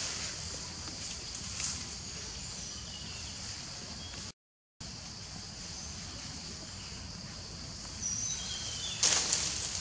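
Steady outdoor forest ambience with an even high hiss, cutting out for a moment about halfway. Near the end, a few short high squeaks from a baby macaque and then a brief loud scuffle as a larger macaque grabs it.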